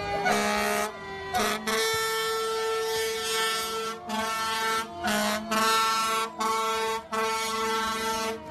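Fire truck's air horn sounding in a string of blasts with brief breaks between them, the longest about two seconds.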